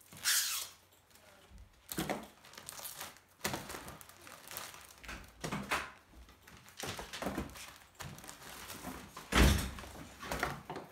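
Packs of men's briefs in card-backed packaging being handled and set down on a pile of underwear: rustling and soft thuds every second or two, with the loudest thump near the end.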